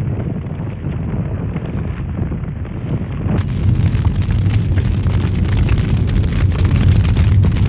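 Wood fire burning inside a multi-chambered wood-fired kiln during a high-temperature firing: a steady low rumble that grows louder about three seconds in, with crackling.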